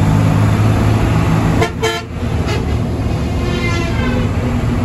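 Hino AK1J bus engine running with a steady low drone under the cab. A short horn blast sounds about a second and a half in, and a fainter tone falls in pitch a couple of seconds later.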